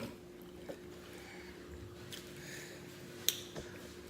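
Mouth sounds of a person eating: soft, wet chewing with a few sharp smacking clicks of the lips, the loudest about three seconds in.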